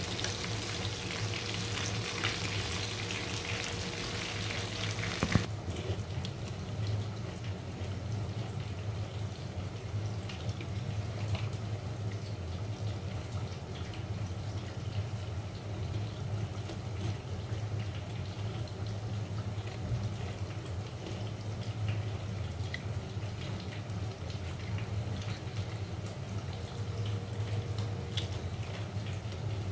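Fish steaks sizzling in hot oil in a frying pan, turned with metal tongs. About five seconds in the sizzle cuts off abruptly, leaving a steady low hum with a few faint ticks.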